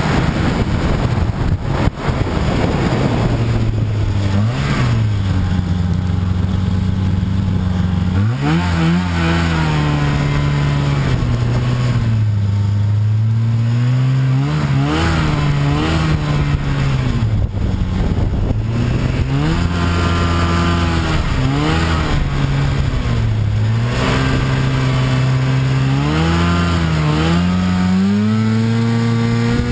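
Snowmobile engine revving up and down over and over as the throttle is opened and eased off, with a sharp climb about eight seconds in and another rise near the end. Wind noise on the microphone in the first few seconds.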